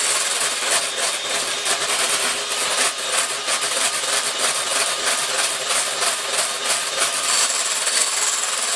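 Electric hand mixer running steadily, its beaters whipping thick double cream in a glass bowl, with rapid clicks and slaps through the whirr. The cream is being churned into butter.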